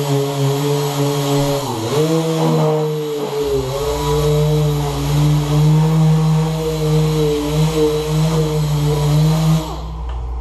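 Pneumatic mini DA sander running steadily as it sands cured panel bond on a car firewall. Its pitch dips briefly about two seconds in, and it stops for a moment near the end before starting again.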